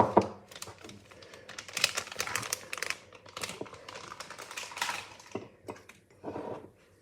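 A run of small clicks, taps and crinkles from paper cupcake cases and kitchen utensils as batter is poured into the cases. A sharp click comes right at the start.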